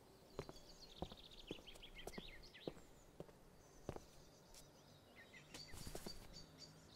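Faint footsteps on a paved sidewalk, about two steps a second, with small birds chirping in quick high trills. The steps stop about four seconds in, followed by a brief rustle near the end as the mail bag is opened.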